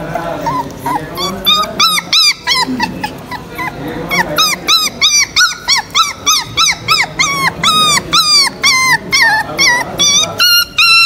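Several young puppies whining and yelping: short, high calls that rise and fall, about three a second, coming thicker from about four seconds in.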